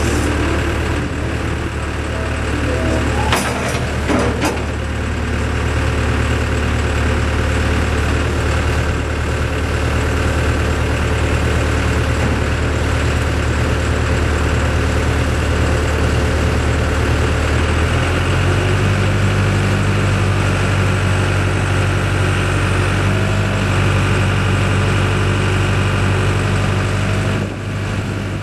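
Diesel engine of a 2007 Case 580M Series 2 backhoe loader running steadily, with a few knocks about three to four seconds in. About eighteen seconds in the engine speed steps up and holds at the higher pitch.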